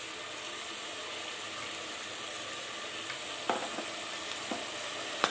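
Chicken pieces frying in oil with spices in a pressure cooker pot, a steady sizzling hiss. A metal spoon clicks against the pot a few times in the second half.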